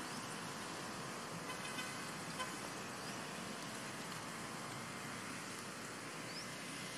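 Steady outdoor background hiss, with a brief faint horn-like tone about two seconds in and a couple of short, faint rising chirps.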